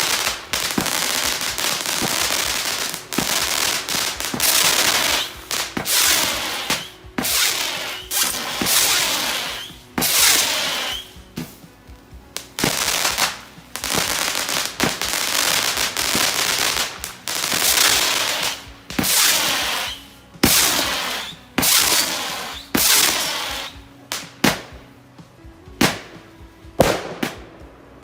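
A 25-shot, 20 mm mixed-effect firework barrage cake (Epic Fireworks Mad Moth) firing: a rapid string of launch reports, each trailed by long hissing and zipping, with crackling bursts. Near the end the shots come apart as a few sharp, punchy reports.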